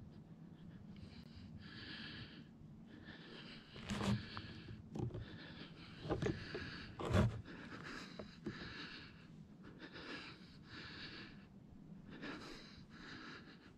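A hunter's quick, heavy breathing close to the microphone, each breath a short hiss in or out, from the excitement of watching for a deer. A few sharp knocks stand out between about four and seven and a half seconds in.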